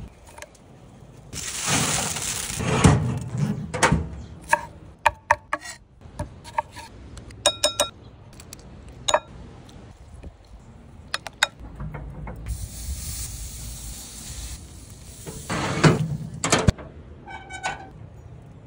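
Cooking sounds: a utensil clinking against a glass mixing bowl several times, some strikes ringing out, and stretches of sizzling from chicken drumsticks on a grill grate.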